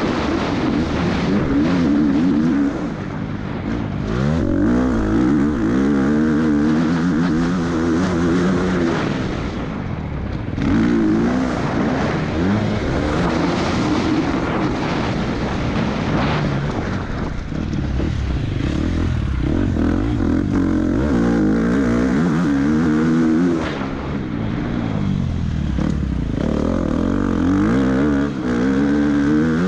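Husqvarna FC 250's four-stroke single-cylinder engine, heard from on the bike, revving hard and climbing in pitch through the gears, then dropping back with each shift. The throttle is shut off briefly a few times as the bike slows for corners.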